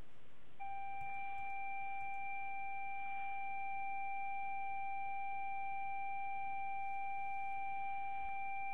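Apple II cassette leader tone played back from the iPhone's small speaker: one steady, unbroken beep, the header of the BASIC program just saved to the iPhone, starting about half a second in and cutting off near the end.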